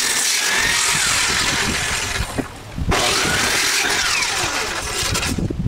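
Corded circular saw cutting across the ends of weathered deck boards. The saw stops briefly about halfway through, starts again with a sharp onset, and its sound falls away near the end.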